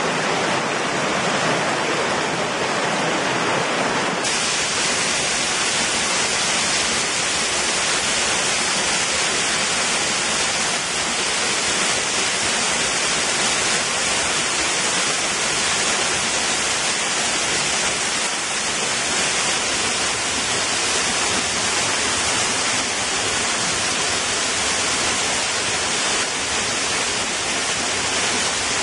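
Rushing water of a mountain stream tumbling over rocks. About four seconds in it gives way to a small waterfall pouring down a rock face, a steady, brighter hiss.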